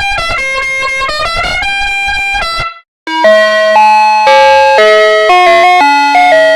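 Bus horn sound-effect variations. The first plays stepped tones over a slowly rising wail and cuts off after about two and a half seconds. After a brief silence, a loud musical horn plays a quick tune of held notes.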